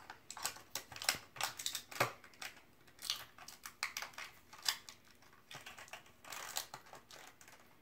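Irregular small plastic clicks and taps from handling a plastic Shopkins collector case and the little plastic figures in its compartments.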